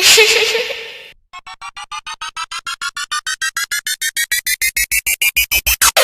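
Synthesized editing sound effects: a short noisy hit that fades over about a second, then a run of electronic beeps that speed up and climb steadily in pitch, a tension-building riser that cuts off abruptly.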